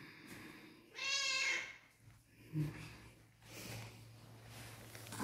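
A hungry long-haired cat meowing for food: one loud meow lasting about half a second, about a second in.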